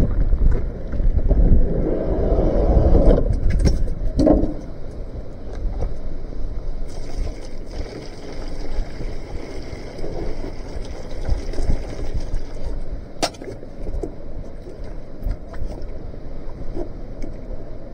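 Strong wind buffeting the microphone, with rustling and knocking as gear is handled at an open van door. One sharp click about thirteen seconds in.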